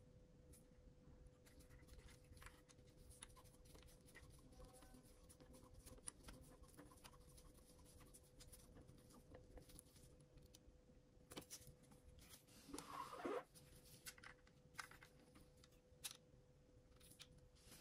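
Faint clicks, taps and light scraping of small tools and tiny drone gimbal parts being handled, with one brief louder rustle about thirteen seconds in, over a faint steady hum.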